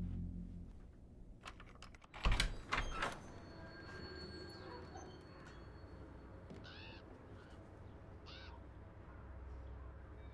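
A quick run of sharp knocks a little after two seconds in, then a crow-like bird cawing twice, about seven and eight and a half seconds in, over a low steady hum.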